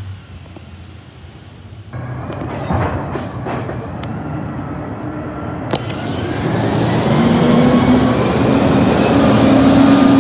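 Heil garbage truck with a natural-gas engine driving past close by: a low engine drone with a few clanks, growing louder from about seven seconds in and holding a steady pitch to the end.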